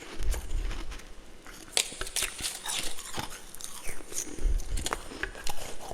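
A person biting and chewing freezer frost and ice close to the microphone: a run of irregular, crisp crunches with a few low thumps.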